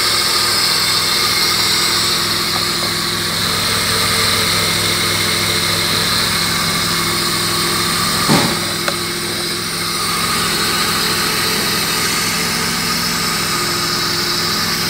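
BMW M50B20TU 2.0-litre inline-six engine idling steadily. A short louder sound about eight seconds in.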